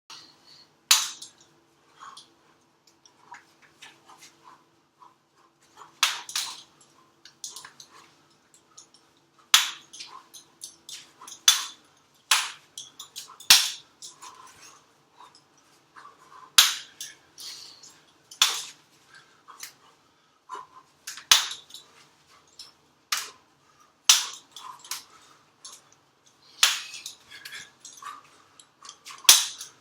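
Sharp clacks of strikes hitting a wooden jump rope handle used as a practice target, in irregular flurries with a loud hit every second or two and lighter taps between.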